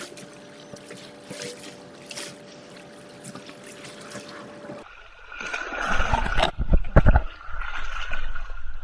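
Shallow seawater lapping and trickling at the shoreline, with a faint steady hum under it. About five seconds in, the sound grows louder, with splashing and a few heavy low thumps.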